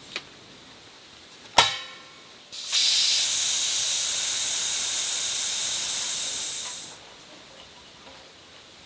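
A sharp metallic click, then compressed air hissing steadily out of a brass valve on a 20-gallon air compressor for about four seconds before it cuts off.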